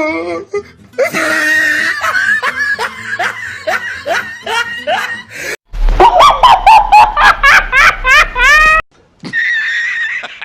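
A run of meme laugh sound clips played back to back with short gaps between them: a long pulsing laugh, then a much louder, distorted clip with a low hum under it, then a short clip near the end.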